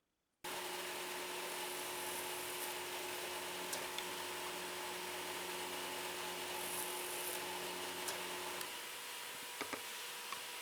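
Woodworking power tool running steadily, cutting in suddenly about half a second in. Its tone shifts and drops slightly near the end, with a few light clicks.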